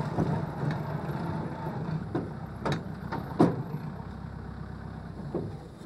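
Small farm tractor engine running steadily while towing a metal trailer, with a few sharp knocks and rattles from the trailer in the second half.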